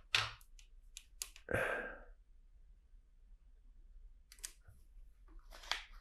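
Plastic LEGO monorail track pieces clicking and rattling as they are handled and sorted: a few sharp clicks at the start, a short rustling rush about a second and a half in, then more clicks near the end.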